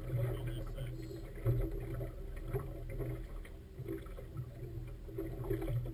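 Boat engine running at a steady pitch, with water splashing against the hull.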